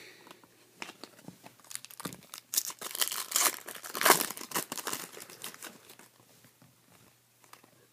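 Foil wrapper of a Topps Chrome trading-card pack crinkling and being torn open by hand: a run of dense crackling rustles, loudest about four seconds in and thinning out after.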